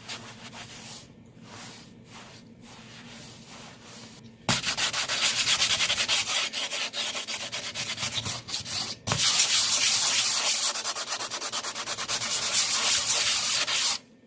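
80-grit sandpaper rubbed by hand over cured fiberglass resin on a skateboard deck. Light, soft strokes at first, then from about four and a half seconds in, fast, loud back-and-forth scrubbing with a brief pause about halfway.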